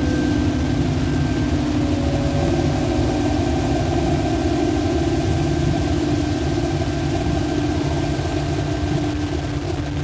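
A steady low rumbling drone with several held tones on top and a thin high whistle-like tone running through it.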